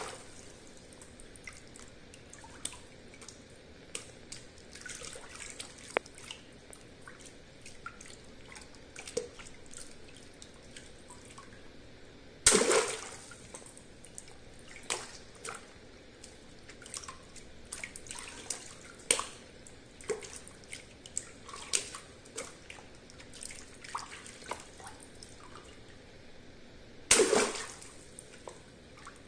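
Water-filled latex balloons popped with a pin in a tub of water: two sharp pops, each with a splash, about twelve seconds in and near the end. Between them, small splashes, drips and sloshing of water as hands handle the balloons.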